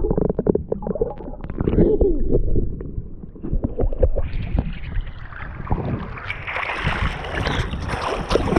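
Sea water sloshing and splashing around the microphone of a camera carried by a swimmer. The first few seconds are a low, choppy churning; from about four seconds in it turns into brighter, busier splashing.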